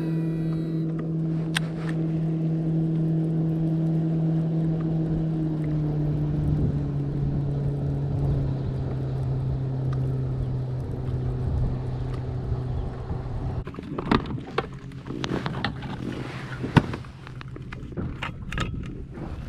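A boat motor drones steadily, dropping slightly in pitch about a third of the way in, then fading. Near the end come several sharp clicks and knocks.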